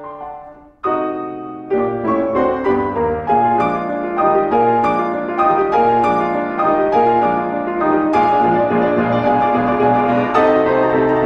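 Solo piano music, with a brief pause about a second in before the playing resumes.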